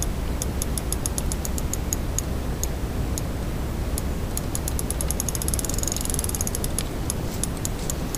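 Fishing reel clicking as line is worked on a hooked fish: a few ticks a second, quickening into a rapid run of clicks a little past the middle. A steady low rumble sits underneath.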